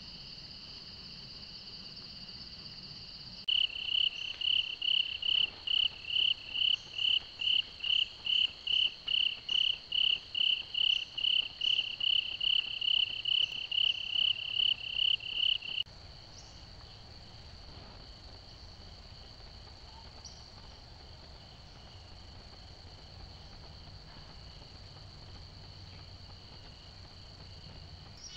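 Insect chorus of crickets: a steady high trill throughout. From a few seconds in until about halfway through, a closer cricket adds loud, even chirps about twice a second, which then stop suddenly.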